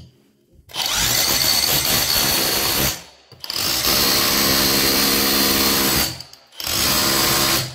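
Bosch GBH 180-LI cordless rotary hammer run three times in hammer-drill mode with its bit pressed on a steel spanner, each run lasting a couple of seconds and stopping abruptly. The hammer blow is weak though not absent, the fault that the repair traces to a worn compression ring.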